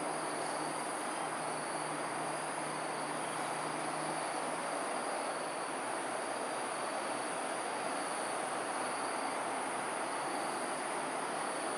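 Steady, even rushing background noise with a constant high-pitched insect drone above it.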